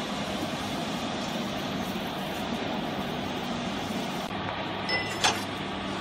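Steady electric machinery hum with an even mechanical noise, and a single sharp click about five seconds in.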